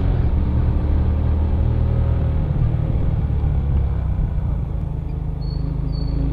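Suzuki Smash Revo underbone motorcycle's small single-cylinder four-stroke engine running as the bike rides along a paved road, a steady deep rumble with the lowest sounds strongest.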